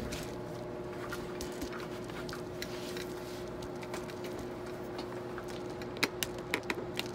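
Steady electric hum of a workshop machine, with a few light clicks and knocks about six seconds in.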